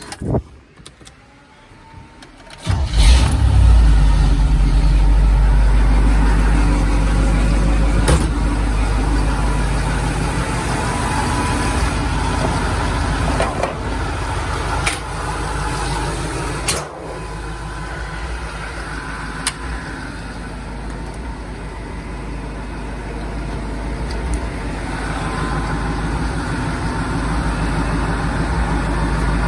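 Toyota pickup truck engine starting about three seconds in, then running steadily. The start is loudest, and the sound eases slightly afterwards.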